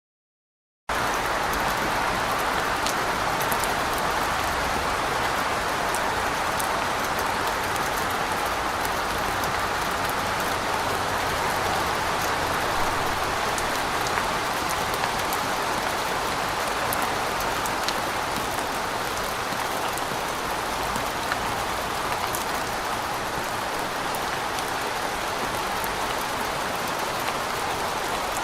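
Steady rain falling, an even hiss with scattered drop ticks, starting suddenly about a second in.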